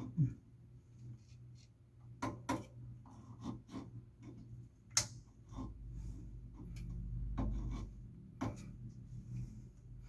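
Tools and plumbing fittings being handled under a sink during a faucet repair: scattered knocks and clicks with rubbing, and a low rumble for a couple of seconds past the middle.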